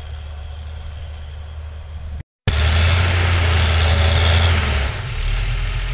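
Fendt 930 Vario tractor's six-cylinder diesel pulling an eight-furrow reversible plough under heavy load in wet soil, a steady deep engine drone. After a brief break about two seconds in, the engine is much louder and closer, and its low note drops near the end.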